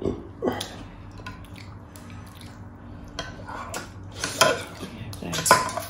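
Close-up mukbang eating sounds: wet mouth sounds and slurps of pork hock in sour broth, with light clicks of plates and dishes. Several louder slurps or clatters come past the middle.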